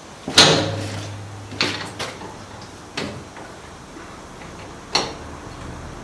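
Tools and metal parts knocked and set down while a motorcycle's rear suspension is being dismantled: about five separate clanks, the loudest about half a second in with a short ring.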